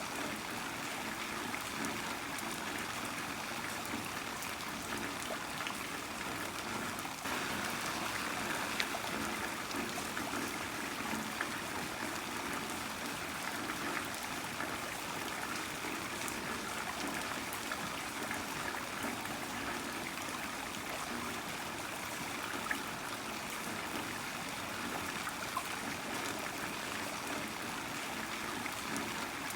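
Heavy rain falling steadily, a dense hiss of rain with scattered drops and trickling water, a little louder from about seven seconds in.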